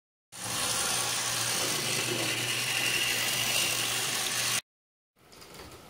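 Model steam locomotive running along its track: a steady mechanical whirr of its electric motor and gearing with a low hum. It cuts off abruptly about a second before the end, and a fainter running sound starts again just after.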